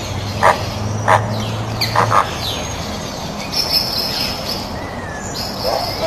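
A flock of flamingos honking: a few short, nasal calls in the first two seconds and again near the end, with higher chirping calls in between.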